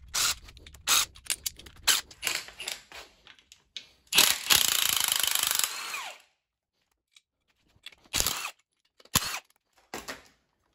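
Hand-held power tool loosening the side bolts of an engine block's main bearing caps: a string of short trigger bursts, then one run of about two seconds, then a few more short bursts near the end.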